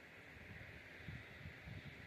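Quiet outdoor ambience: wind gusting on the microphone in uneven low rumbles over a faint, steady high hiss.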